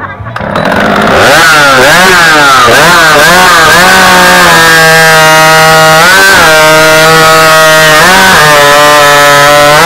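Two-stroke stock chainsaw starting up and revving to full throttle for a timed race cut, then running flat out. Its pitch dips several times as the chain bites into the log under load, and it holds high and steady through most of the second half.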